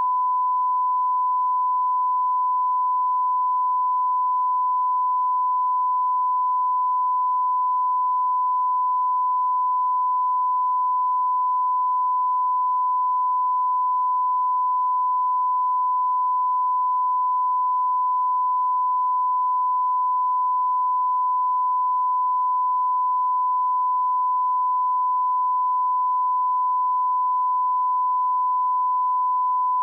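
Steady 1 kHz reference tone: a single pure pitch held at an unchanging level. It is the line-up tone that runs with colour bars at the head of a broadcast videotape, used to set audio levels.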